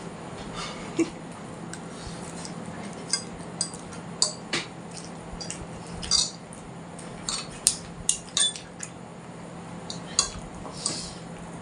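Cutlery clinking and scraping against dishes while eating instant noodles: a dozen or so irregular, sharp clinks.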